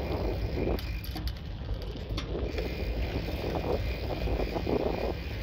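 Wind buffeting the microphone over a steady low rumble of tyres on the road while riding a bicycle, with a few light clicks and rattles from the bike about one to two seconds in.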